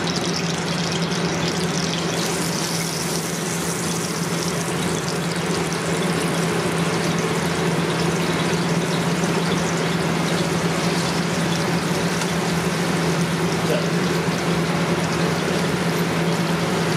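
Floured pieces of beaver meat sizzling as they are laid into smoking-hot canola oil in a wide pan, the sizzle building from about two seconds in as more pieces go in. A steady low hum runs underneath.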